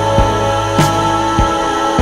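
Music: sustained chords over a steady low drum beat, roughly five beats every three seconds.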